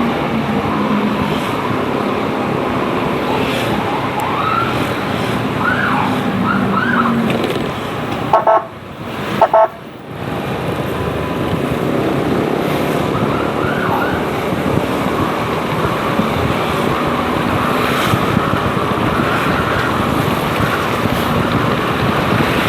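Emergency siren sounding in short rising-and-falling sweeps, heard over steady road and wind noise while riding. Around eight to ten seconds in the rushing noise drops away briefly and a few short steady tones sound.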